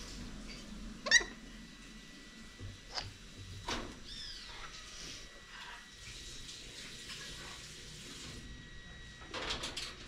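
Pet parrots calling: one loud, sharp squawk sliding quickly downward about a second in, a shorter falling call around four seconds in, then scattered clicks and chirps near the end.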